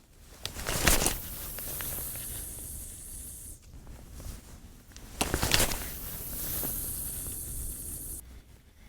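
Two spells of rushing hiss. Each starts with a sharp swish, about half a second and about five seconds in, then runs steadily for some three seconds before cutting off suddenly.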